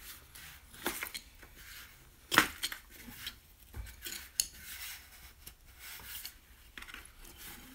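Hands digging a freshly cast metal figure out of a bucket of powdery mould material: scraping and crunching with irregular light metallic clinks, the sharpest knock about two and a half seconds in.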